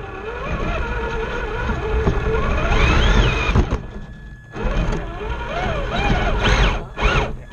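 Electric motor and geared drivetrain of a scale RC rock crawler whining, the pitch rising and falling with the throttle over a low rumble, heard close up from on board the truck. The motor drops off briefly about four seconds in, then picks up again.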